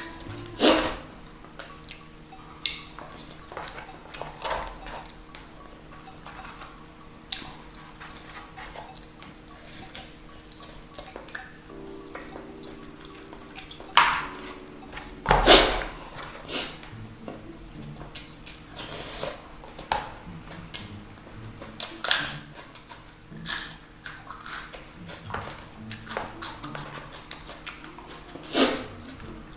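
Eating sounds from someone working through crispy fried chicken and rice: irregular chewing and crunching clicks with a few sharper bites, and occasional clinks of a plate or utensil.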